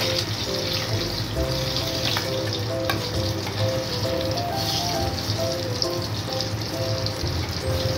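Chicken rings deep-frying in hot oil in a kadai, the oil sizzling steadily, with a few light clicks of a perforated steel skimmer turning and lifting them.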